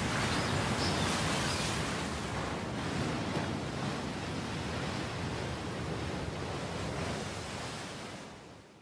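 Sea surf washing onto a beach, a steady rush of waves that fades out near the end.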